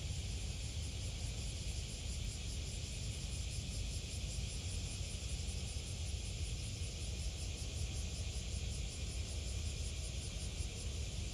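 Steady outdoor shoreline ambience: a continuous low rumble under an even high hiss, with no distinct events.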